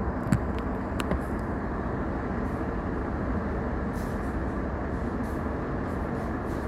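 Steady running noise inside a stopped electric train car, the hum of its on-board equipment while it waits, with a few sharp clicks near the start.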